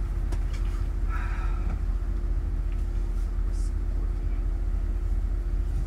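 Steady low rumble of a long-distance coach bus, heard from inside the passenger cabin, with a constant hum over it.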